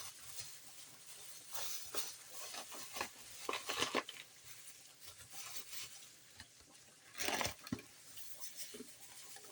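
Kitchen handling sounds: a few short scrapes and rustles of a spoon and containers while sugar is worked into baked beans, the loudest about seven seconds in.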